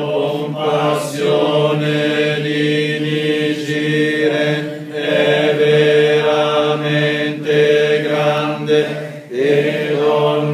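Buddhist congregation chanting in unison with a priest: a steady, droning recitation on a held pitch, broken by short pauses for breath every second or two.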